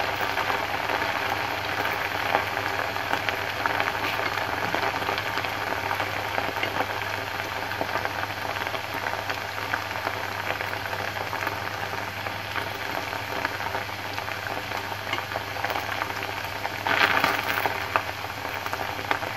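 Fresh pho rice-noodle strands deep-frying in a wok of plenty of hot oil: a steady, dense sizzle and crackle, with a louder surge of sizzling near the end as the noodles are stirred with chopsticks.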